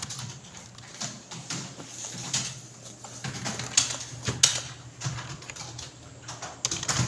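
Several people typing on computer keyboards: irregular, overlapping key clicks, with a few sharper keystrokes near the middle, over a steady low hum.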